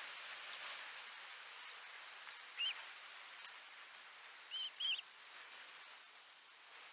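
Nestling birds cheeping in the nest: a few short, high, squeaky calls, one a little past two seconds in and two in quick succession about four and a half seconds in, with a couple of sharp ticks over a faint steady hiss.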